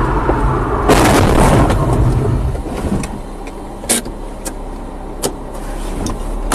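Dashcam recording of a vehicle's engine running with road noise, and a loud harsh rough noise starting about a second in and lasting over a second. The engine note then drops away as the vehicle comes to a stop, with a few sharp clicks near the middle.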